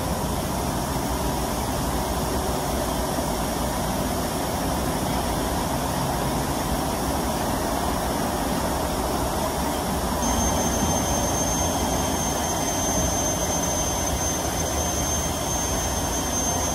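Steady rushing noise of road traffic, even throughout, with a thin high-pitched whine joining about ten seconds in.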